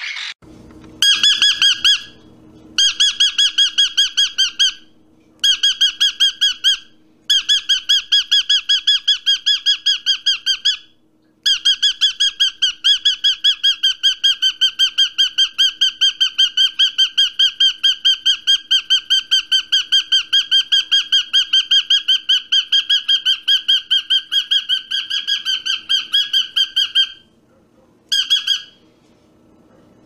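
A bird calling in runs of rapid, evenly spaced notes at one steady pitch. The runs come in several bouts with short breaks, the longest lasting about fifteen seconds.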